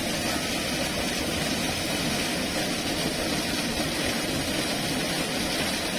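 Waterfall (Shiomi Falls) rushing: a steady, unbroken wash of falling water.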